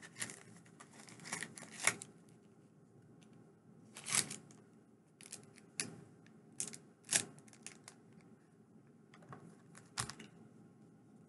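Small packaging bag being handled and opened by hand: scattered short crinkles and clicks, a few louder ones about two, four, seven and ten seconds in.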